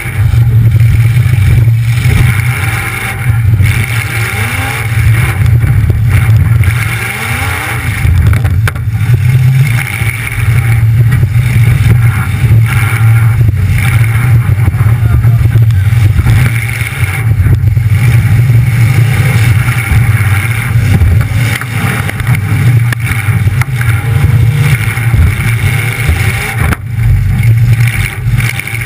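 Demolition derby car's engine running very loud through short open exhaust stacks that come straight up through the hood, revving up and down as the car drives.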